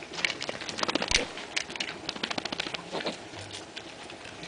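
Pigs eating: rapid, irregular crunching and smacking clicks, busiest in the first two seconds and thinning out after, with one louder knock about a second in.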